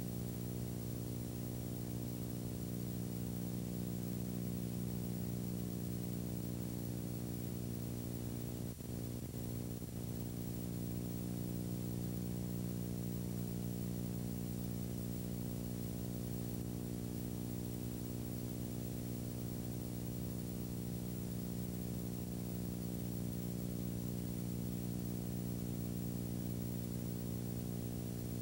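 Steady electrical hum with a faint hiss above it, dipping briefly about nine seconds in.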